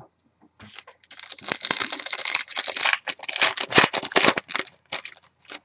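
Plastic wrapper of a trading-card pack crinkling as it is handled and opened: a dense crackle lasting about four seconds, then a few lighter clicks as the cards come out.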